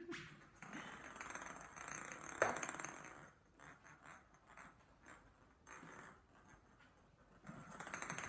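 Small plastic ball rolling and rattling across a ceramic tile floor, with one sharp knock about two and a half seconds in. Fainter scattered taps follow.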